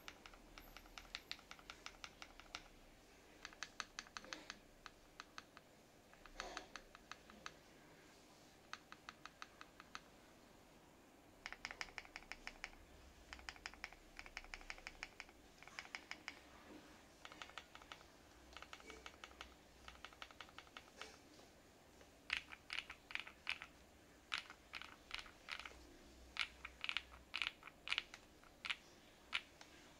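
Mechanical keyboard with lubed KTT Kang White v2 linear switches, a Poron plate foam and switch pads, being typed on in bursts of rapid keystrokes. The strokes turn louder and more spaced out in the last third.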